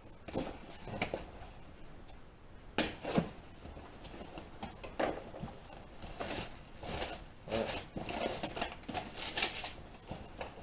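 Irregular light rustling, clicks and taps of auto parts in their packaging being handled.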